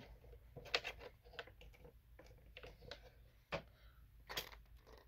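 A few faint, irregular clicks and taps, several scattered through a few seconds, over a low steady hum.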